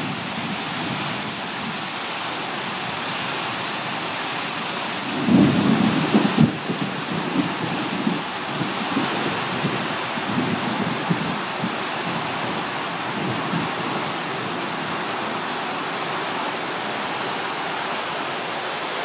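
Heavy rain teeming down steadily in a thunderstorm. A roll of thunder comes in about five seconds in, loudest for a couple of seconds, then rumbles on more faintly for several seconds.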